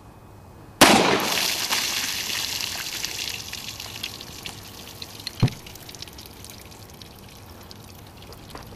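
A single .45 ACP pistol shot from a Springfield XD(M) about a second in, followed by water splashing and pouring out of the shot-through water jugs, fading over several seconds. A single sharp knock about five seconds in.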